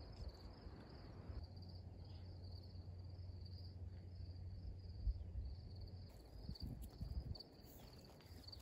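Faint, steady chorus of insects trilling in a high, pulsing rhythm. Near the end come a few soft footsteps on gravel.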